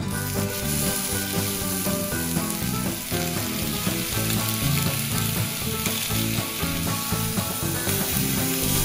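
Background music with a steady, even hiss under it. The hiss starts abruptly at the beginning.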